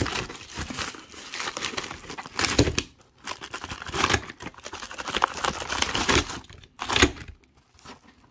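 Yellow padded mailer crinkling and rustling as it is squeezed and shaken to empty it, with silver rounds in plastic sleeves sliding out onto the pile and a few louder knocks.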